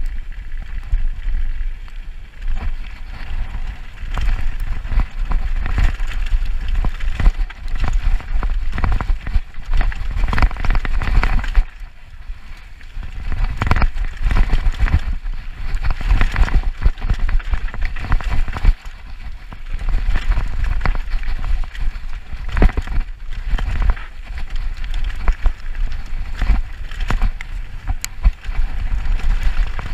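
Mountain bike descending a dirt trail, heard from the rider's own camera: wind rumbling over the microphone, with tyres crunching on dirt and the bike clattering and rattling over bumps. It eases briefly about twelve seconds in.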